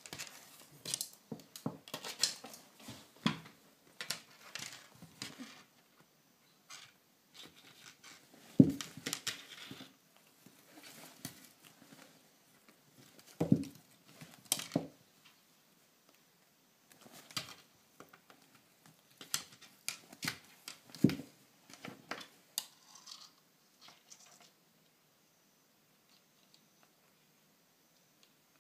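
A kitten scuffling with a fibrous cat toy on a wooden floor: scattered scratching, rustling, claw clicks and pattering, with a few louder thumps. The noises stop near the end.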